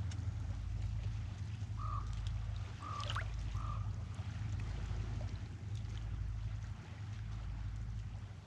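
Steady low rumble of wind on the microphone over faint water noise, with three short calls of one pitch about two, three and three and a half seconds in.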